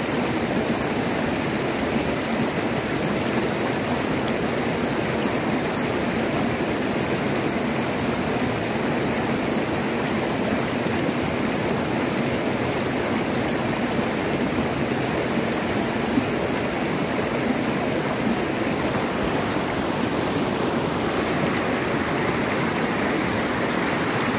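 Shallow river rapids rushing over rocks close by: a steady, even rush of white water.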